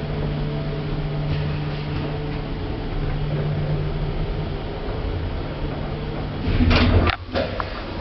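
Passenger lift car running with a steady low hum of its machinery, then a louder rush of noise near the end as the sliding doors open.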